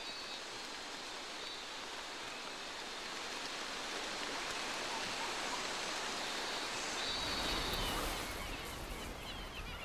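Steady hiss of heavy monsoon rain, with a low rumble joining about seven seconds in.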